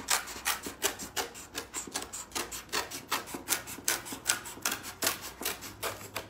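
Cardboard-cutting scissors snipping through a cardboard box in a steady series of short, crisp cuts, about four a second.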